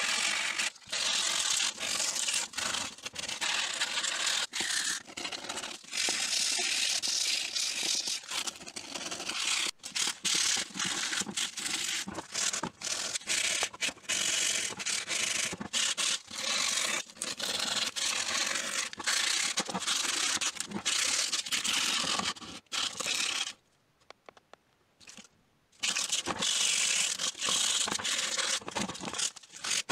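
Sandpaper rubbed by hand along the steel handles of old pincers, a fast run of scratchy back-and-forth strokes. The strokes stop for about two seconds about three-quarters of the way through, then start again.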